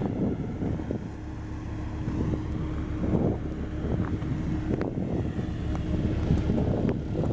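BW 211D road roller's diesel engine running steadily, a low rumble with a steady hum, with wind buffeting the microphone.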